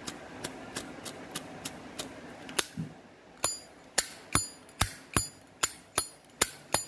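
Zippo lighter lid being flicked open and snapped shut over and over, giving about two to three sharp metallic clicks a second. From about halfway the clicks grow louder and ring with a bright metallic ping. It is the lid-and-hinge sound of a 1998 Zippo with its matching original insert, which the seller calls very OK.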